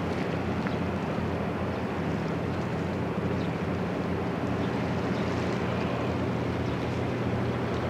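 Steady low hum of a large cruise ship's machinery, with wind noise on the microphone over it.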